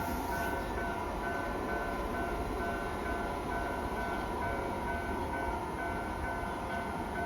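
Japanese level-crossing warning bell ringing in a steady repeating pattern over the continuous rumble of a Keisei 3000-series electric train running past on the rails.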